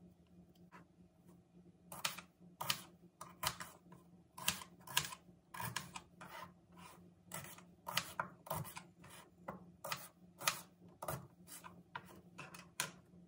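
Paring knife cutting through small red onions onto a plastic cutting board. From about two seconds in there is a run of sharp, uneven knocks, about two a second.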